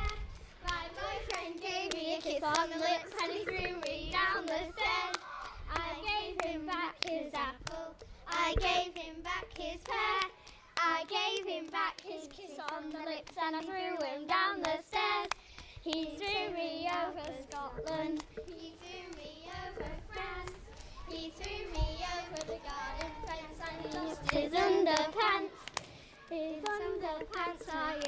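Young girls singing a clapping-game rhyme together, with the sharp slaps of their palms clapping against each other in time with the song.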